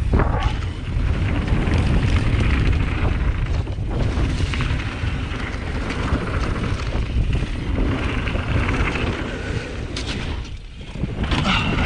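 Mountain bike descending a dirt trail: steady rumble of tyres over dirt and wind buffeting the microphone. A sharp knock about ten seconds in, followed by a brief dip in the noise.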